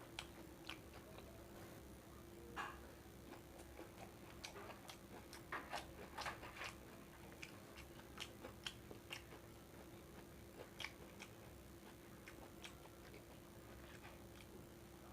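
Faint close-miked eating sounds of someone eating fried rice: chewing with scattered sharp mouth clicks and smacks, bunched together between about four and seven seconds in, over a steady faint hum.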